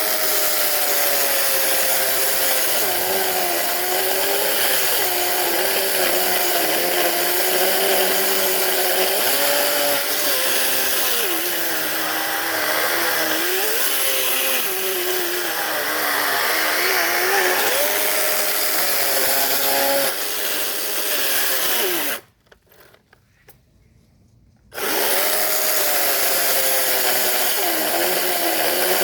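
Motorised saw running hard while cutting tree branches, its pitch repeatedly dipping and recovering as it works. The sound drops out suddenly for about two seconds about three-quarters of the way through, then resumes at full level.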